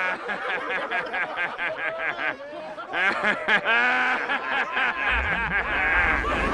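Several young men laughing and snickering together in rapid overlapping bursts, jeering laughter. A low rumble joins in about five seconds in.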